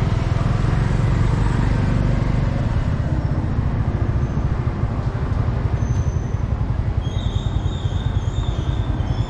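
Steady low rumble of road traffic and wind, heard from a vehicle moving along the street, with faint high-pitched squeaks near the end.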